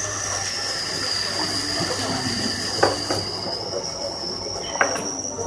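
A machine's high-pitched whine held steady with a slight waver, over a low hum, with two sharp clicks about three and five seconds in.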